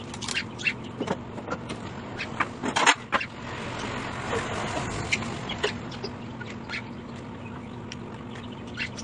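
Kitchenware being handled at a sink: scattered clinks and knocks, with a loud clatter about three seconds in, then a few seconds of hiss. A steady low hum runs underneath.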